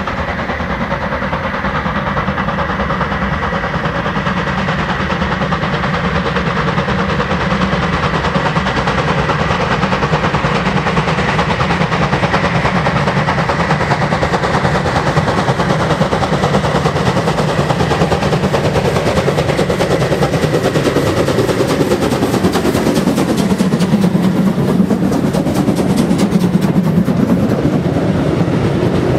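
A freight train hauled by a class 52.80 steam locomotive rolling past, with a steady loud rumble and clatter of wagon wheels on the rails. In the last third the clatter turns into a fast run of clicks, and the pitch dips and rises again as the train goes by.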